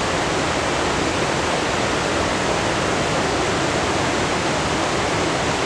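Steady, loud rushing noise with no pitch to it, even and unchanging.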